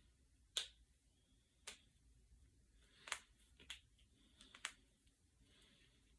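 Finger knuckles being cracked: about five sharp pops, spaced irregularly over about four seconds, the first and third loudest.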